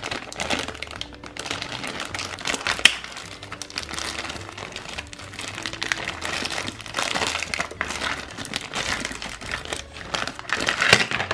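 Crinkling and rustling from hands handling plastic toy molds and their packaging, a continuous run of small crackles with no pause.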